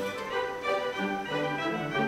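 Instrumental background music with a string melody, the notes moving along quickly.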